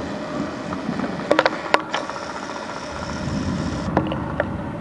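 A low outdoor rumble that swells about three seconds in, with a few sharp clicks around a second and a half in and again near the end.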